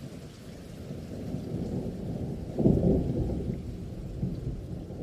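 Thunder rumbling over steady rain, swelling to its loudest about two and a half seconds in and then slowly dying away.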